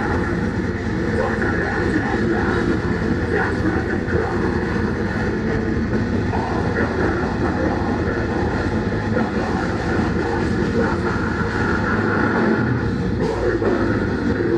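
Deathcore band playing live at full volume: heavy distorted guitars and rapid, pounding drums in one dense, unbroken wall of sound.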